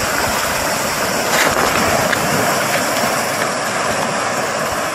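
River water rushing and churning steadily over rocks at the bank.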